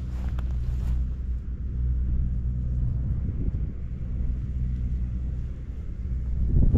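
An engine running steadily, a low rumble.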